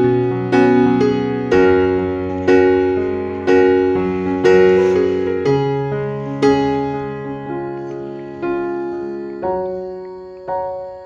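Slow background piano music, a new note or chord struck about once a second and each left to ring and fade.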